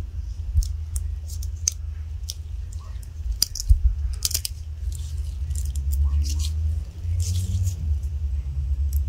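Small, sharp metallic clicks and ticks, irregular and scattered, as a steel gas ring is pried and snapped into its groove on an AR-15 bolt with a hooked metal pick. Under them runs a steady low hum.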